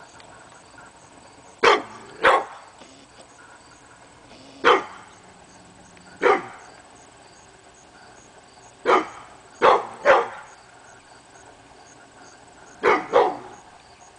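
Pit bull barking, about nine short barks in all: single barks and quick pairs and a triple, with gaps of a few seconds between them.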